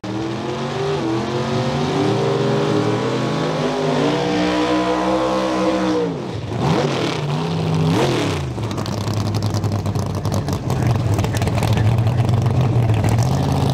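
Drag race car engines revving, climbing in steps and then rising and falling sharply about six to eight seconds in. After that one engine holds a steady high rev under a rushing hiss, a drag car doing a burnout.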